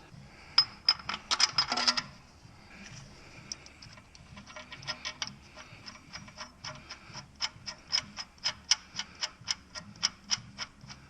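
Ratchet wrench clicking as a bolt is turned: a quick flurry of clicks, then a steady run of about four clicks a second.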